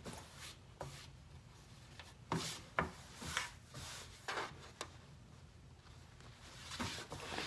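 Cotton fabric rustling and rubbing against the sewing table as hands smooth the layers flat and pin them, with several light ticks scattered through.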